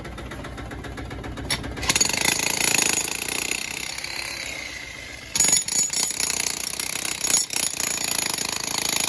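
Digger breaking out an old concrete base: the engine running, then from about two seconds in the bucket scraping and grinding against the concrete with knocks and cracks, getting louder about five seconds in.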